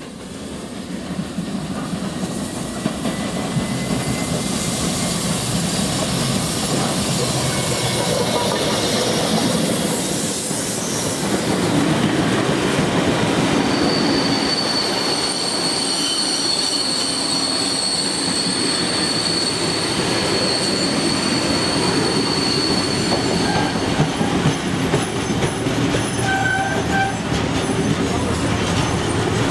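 Steam locomotive 3642, a New South Wales 36 class, and its train of heritage carriages rolling past on a curve. From about halfway through, the wheels squeal with a steady high tone for several seconds.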